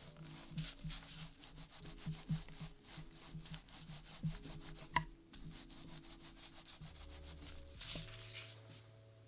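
Thin wooden dowel pressed hard and rolled back and forth over a cornmeal-dusted dough roll on a wooden board: quick rubbing strokes with light wood-on-wood knocks, and one sharper knock about five seconds in.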